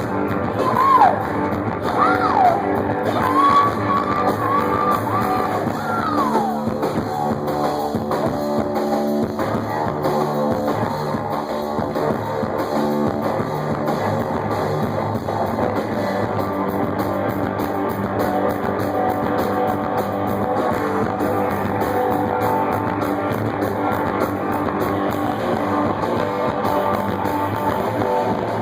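A rock band playing live punk blues, with electric guitar to the fore. Sliding, wailing notes sound in the first six seconds, then the band settles into a steady instrumental riff.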